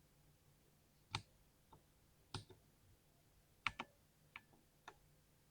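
Single keystrokes on an Alien 60 mechanical keyboard, spaced out about a second apart rather than fast typing, with a quick pair of presses near the middle and a couple of lighter ones after it.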